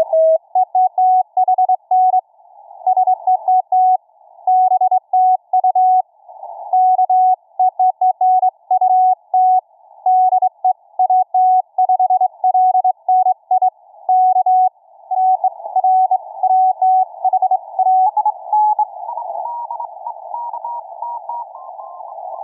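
Morse code (CW) on the 40-metre amateur band from an Elecraft K3S receiver, heard through a W3NQN passive narrowband CW audio bandpass filter. A single clear tone is keyed in dots and dashes over band hiss that the filter narrows to a thin hollow band. Near the end the keyed signal fades into the hiss and the tone's pitch steps upward several times.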